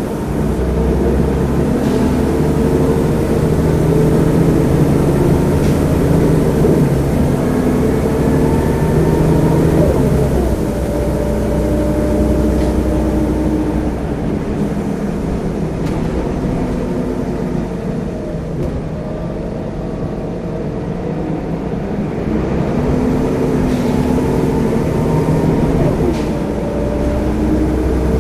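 Diesel engine of a single-deck bus heard from inside the passenger saloon while under way. The engine note climbs as it accelerates and drops back as the gearbox changes up, about ten seconds in and again near the end, with an easier stretch between.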